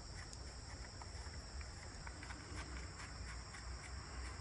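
A faint, steady, high-pitched insect chorus, with light scattered ticks from the chainsaw's side-cover nuts being finger-tightened.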